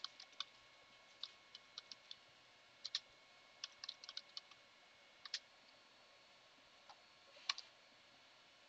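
Computer keyboard typing: faint, irregular keystrokes for about five seconds, then a pause and one last keystroke near the end.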